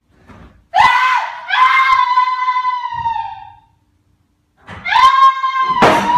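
A person screaming: a long, high-pitched scream starting about a second in and fading out after nearly three seconds, then a second scream near the end.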